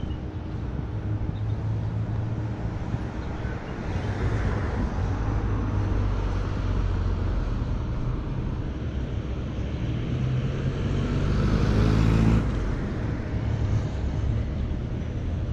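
Road traffic with engines running steadily. It swells about eleven to twelve seconds in, then drops off suddenly.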